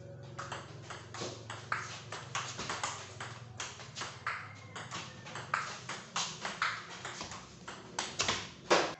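Table tennis rally: a ping-pong ball clicking back and forth off the paddles and the table, about two to three hits a second, with one louder hit near the end.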